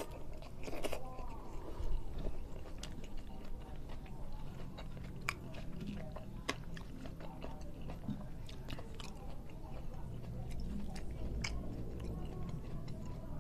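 A man chewing mouthfuls of rice and side dishes eaten by hand, close to the microphone, with many short sharp clicks from the mouth and fingers scattered throughout.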